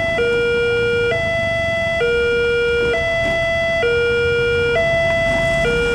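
Railway level-crossing warning alarm: an electronic two-tone signal alternating between a lower and a higher tone, each held for about a second. It warns that the crossing is closing for an approaching train.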